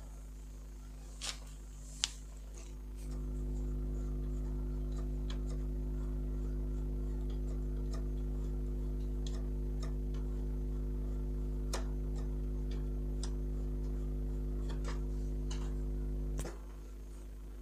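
An office copier humming steadily, a low electrical hum that comes on about three seconds in and cuts off about a second before the end. A few light clicks are heard near the start and once in the middle.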